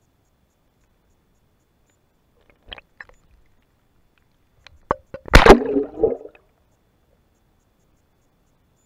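Action camera in its waterproof housing being handled as it comes out of the lake on its rope: a couple of faint clicks, then two sharp knocks and a loud scrape lasting about a second, heard through the housing.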